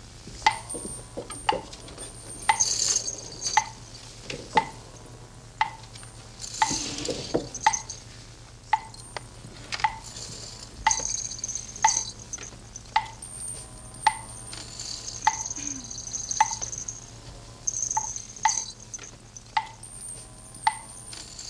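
A run of sharp taps, each with a short ringing ping, coming about one to two a second at uneven spacing, with intermittent hissing swells between them.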